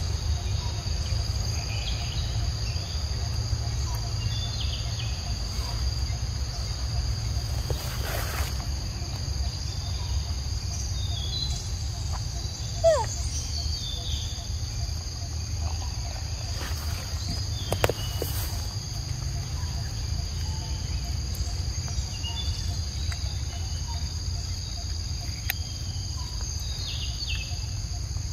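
Steady high-pitched drone of forest insects over a low rumble, with a few short chirps. A short, sharp, falling squeak about 13 seconds in and another sharp sound about 18 seconds in.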